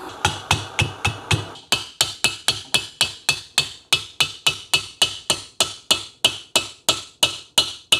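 Steady hiss of a hand-held propane torch heating an engine piston, cutting off about one and a half seconds in. Under it and after it comes an even series of light, ringing metallic taps, about three a second.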